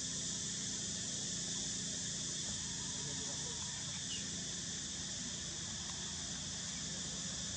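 Steady, high-pitched insect chorus droning without change.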